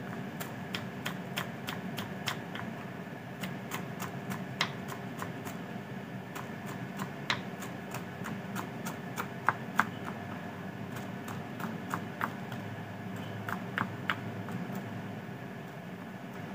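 Kitchen knife finely chopping fresh coriander on a wooden cutting board: quick, uneven runs of light taps as the blade strikes the board, over a steady faint hum.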